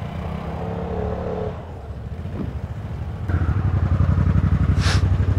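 Vespa Primavera 150 scooter's single-cylinder four-stroke engine running at low speed, then getting clearly louder about three seconds in as the throttle opens.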